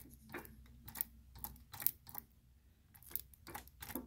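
Ryobi 3302M press's main ink oscillator being rocked by hand, its worn drive block clicking and knocking at uneven spacing, about two to three knocks a second: the sign of play in the oscillator drive block.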